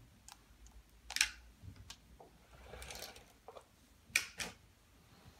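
Handling noise from a phone camera: a few scattered sharp clicks, two of them close together near the end, and a brief soft rustle in a small, quiet room.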